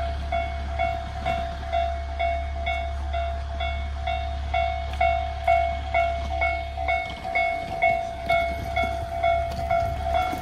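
Japanese railway level-crossing alarm ringing in evenly spaced electronic dings, a little over two a second. A steady low engine hum runs underneath and drops away about seven seconds in.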